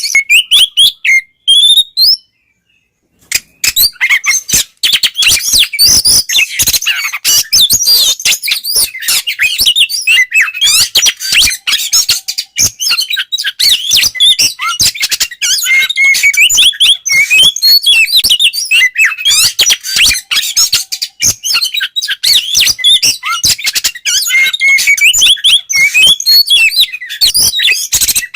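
Oriental magpie-robin (kacer) singing a fast, continuous song of varied chirps and sliding whistles in the full 'ngeplong' style, with a brief pause about two seconds in.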